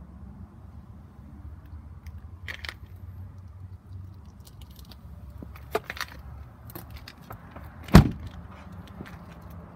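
A Chevrolet Silverado High Country pickup's door shut with a single loud thud about eight seconds in, after a few light clicks and rattles, over a low steady rumble.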